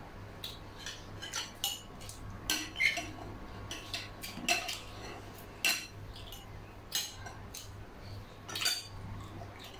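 Metal spoons and forks clinking against ceramic bowls during a meal, in an irregular run of about a dozen sharp clinks.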